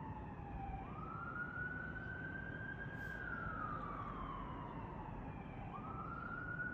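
Emergency-vehicle siren wailing: the pitch sweeps up quickly about a second in, holds high, slowly falls, then sweeps up again near the end.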